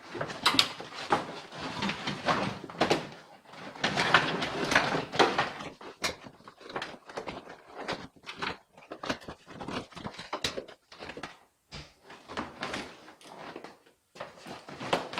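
Irregular handling sounds of car interior trim being cleaned and fitted: scattered knocks, clicks and rustling, busiest in the first half.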